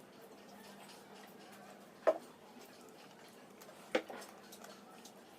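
Eating at a table: two sharp knocks, one about two seconds in and another about two seconds later, over faint steady background noise.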